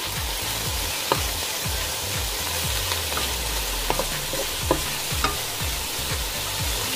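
Diced pork and garlic sizzling in a nonstick frying pan as it is stirred with a wooden spatula, with a few sharp taps of the spatula against the pan.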